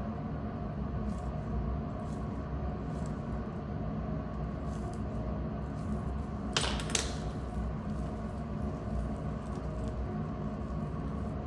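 Steel dissecting instruments, forceps and scissors, clicking twice in quick succession about two-thirds of the way through, with a few fainter ticks, over a steady low hum of room noise.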